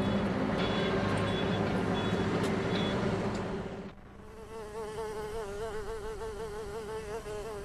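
Road traffic noise with a steady hum. About four seconds in it cuts off, and a bee buzzes close by on a cactus flower, its pitch wavering up and down.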